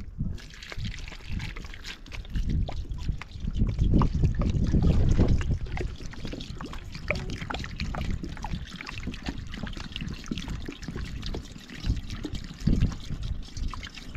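Water trickling in a thin stream from the neck of a plastic jerrycan, splashing onto something held in the hands.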